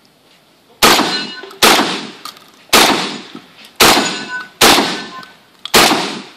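Benelli semi-automatic 12-gauge shotgun fired rapidly: six loud shots, roughly one a second, each followed by a ringing tail.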